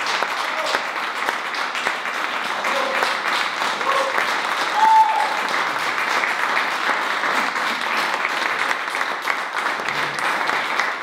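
Audience applauding steadily, with a few brief cheers from the crowd.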